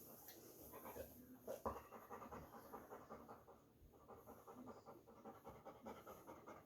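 A dog panting faintly in quick, even breaths, winded from rough-and-tumble play.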